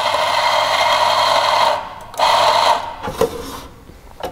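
ECM C-Manuale 54 flat-burr coffee grinder's motor running as it grinds beans, stopping about a second and a half in, then a second short burst, followed by a few light knocks. The grinder has just been set one step finer, and this grinding purges the old grounds held in its dead space.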